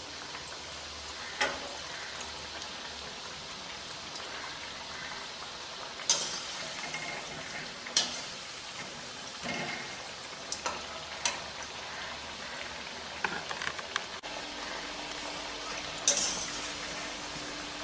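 Bread vadas deep-frying in hot oil in a stainless steel kadai: a steady sizzling hiss, broken several times by sharp clinks and scrapes of a metal slotted spatula against the pan as the vadas are turned.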